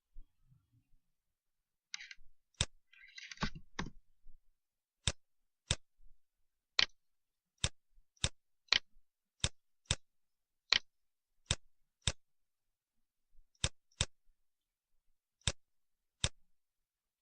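Computer mouse clicking: single sharp clicks at irregular intervals, roughly one every half second to a second and a half, after a short scratchy rustle about two to three seconds in.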